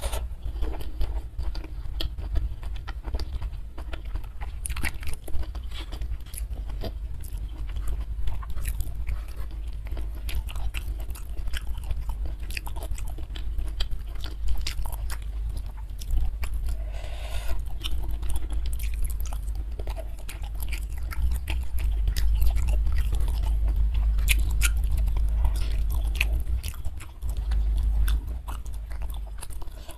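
Close-miked eating sounds: a mouthful of food chewed and crunched, with many short crisp clicks of biting and wet mouth noise.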